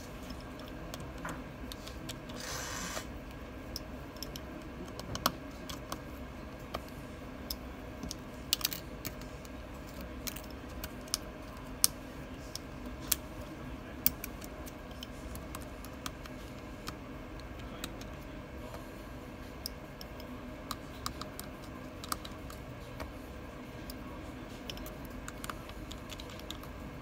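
Irregular small clicks and ticks of a precision screwdriver working tiny screws and metal brackets inside an iPhone, with a brief scrape near the start, over a steady background hum.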